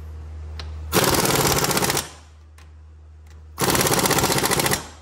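Impact wrench hammering a bolt tight in two bursts of rapid blows, about a second each.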